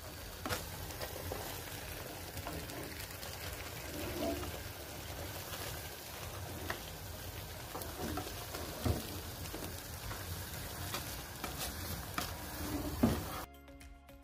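Thick milk pudding sizzling and bubbling in a metal tray over a gas flame, with scattered clicks and scrapes from a utensil in the tray. Its underside is caramelizing to form the burnt base of kazandibi.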